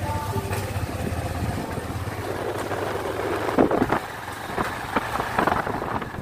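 Motorcycle riding along with its engine humming steadily. The low engine hum fades after a second or two, leaving road and wind rush with uneven swells through the second half.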